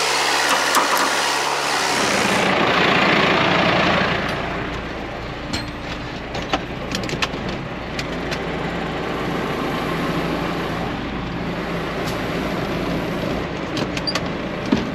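John Deere 6430 tractor engine running steadily, with scattered sharp clicks and knocks over it from about five seconds in.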